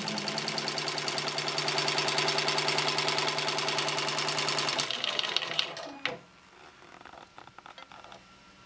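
Embroidery machine stitching small lettering, a fast, even run of needle strokes that slows and stops about five to six seconds in. A single sharp click follows, then only faint ticks.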